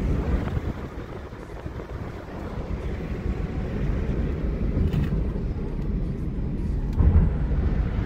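Road and tyre noise inside a moving Toyota Prius, heard from the cabin as a steady low rumble, with a short louder bump about seven seconds in.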